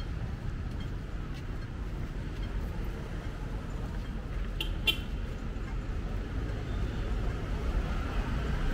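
Street traffic noise: a steady low rumble of passing vehicles, with two short, sharp high-pitched sounds in quick succession about halfway through.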